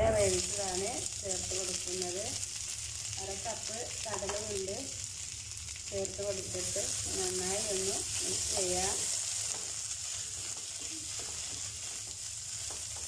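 Onion masala with cooked green peas sizzling in a nonstick frying pan while a wooden spatula stirs it. A low voice is heard faintly in the background for about the first nine seconds.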